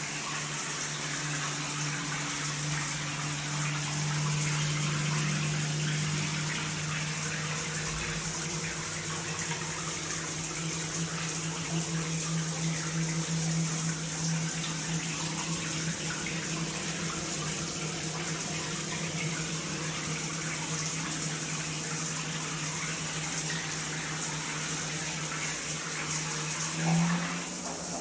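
Water running through a multifunction shower system, with a steady low hum from the shower valve; the humming comes with the body jet function in use and is felt as a slight vibration at the valve. The hum changes pitch briefly near the end.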